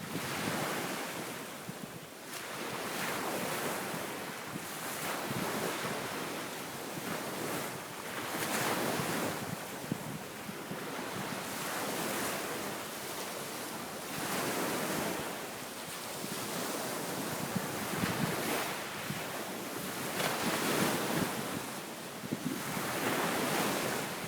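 Waves breaking and washing up a sandy beach, one after another every few seconds, in a strong wind that buffets the microphone; the waves are raised by the east wind ahead of an approaching typhoon.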